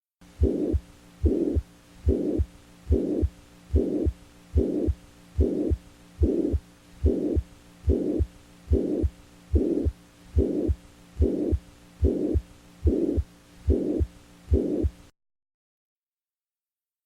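Recorded heart sounds beating steadily at about 72 beats a minute. Each beat is a short whooshing sound with a low thud, and the recording stops near the end.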